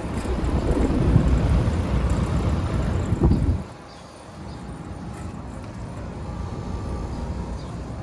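Carrier central air conditioner's outdoor condensing unit running. Its fan discharge buffets the microphone with a loud low rumble for the first three and a half seconds, then drops off sharply to a steadier, quieter running hum.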